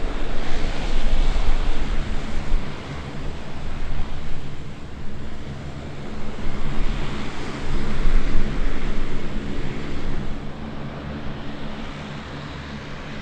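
Lockheed C-130J Super Hercules's four Rolls-Royce AE 2100 turboprop engines running as it taxis, with six-bladed propellers turning: a steady propeller drone with several low tones under a rushing noise that swells and fades.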